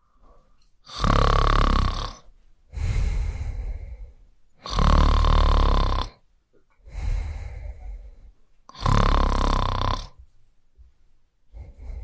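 A person snoring in a slow, regular rhythm: three loud snores about four seconds apart, each with a quieter breath between them.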